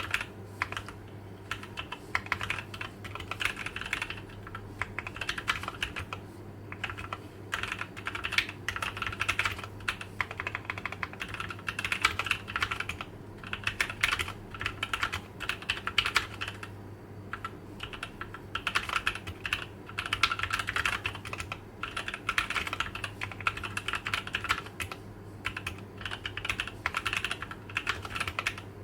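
Typing on a TOKYO60 mechanical keyboard fitted with Gateron CAP V2 Milky Yellow linear switches: quick runs of key clacks in bursts of a second or two, broken by short pauses, over a faint steady hum.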